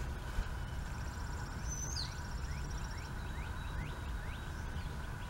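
Outdoor background of a steady low rumble with small birds singing: a high trill about a second in, then a run of about six short rising chirps.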